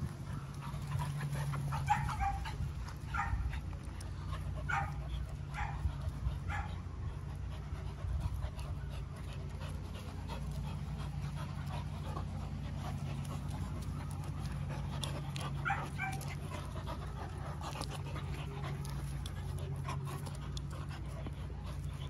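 Two dogs wrestling in play, panting, with short bursts of play noise through the first several seconds and again about sixteen seconds in, over a steady low hum.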